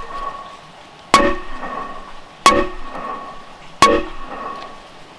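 Three sharp hammer blows on wood, about 1.3 seconds apart, each with a brief ringing tail. They drive round wooden legs into the mortises of a log workbench top.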